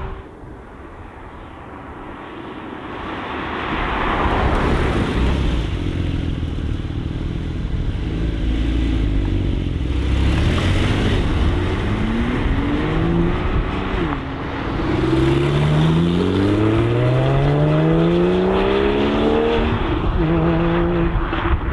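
Sports car engine accelerating hard. It builds to a loud, even noise, then rises in pitch and drops back at each upshift, about three times in the second half.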